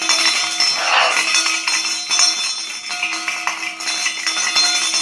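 Metal objects shaken hard together, a loud continuous jangling and clinking.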